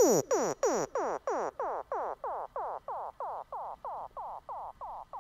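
Psytrance zap from the Serum synth, a saw wave with a falling pitch envelope, repeating through a ping-pong delay with high feedback. The echoes come about three and a half a second, each a quick downward pitch sweep. They fade steadily and narrow toward one mid pitch until almost a single frequency is left, while a gritty high edge dies away about two seconds in.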